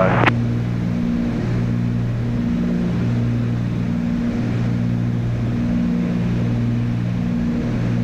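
Cockpit drone of a Cessna 310's twin piston engines and propellers in flight. A steady low hum swells and fades in a slow, regular pulse about every second and a half.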